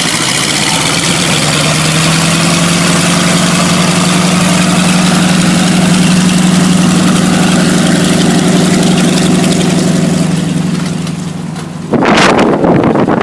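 Vintage Pilgrim airplane's radial engine running with a steady low drone that firms up and rises slightly about a second and a half in. Near the end the drone gives way suddenly to a gusty rush of air buffeting the microphone.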